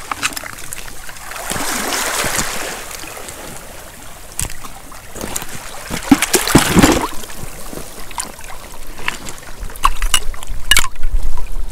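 Shallow seawater splashing and trickling around rocks and seaweed as a hand rummages through a rock pool, with a few sharp knocks of stone or shell. The biggest splash comes about six to seven seconds in.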